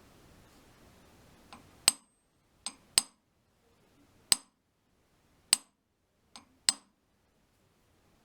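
About eight sharp, ringing metal-on-metal clinks spread over five seconds, some coming as a faint tap followed quickly by a louder one. They come from light taps or adjustments on the adjustable lathe center as it is snugged to bring its runout down.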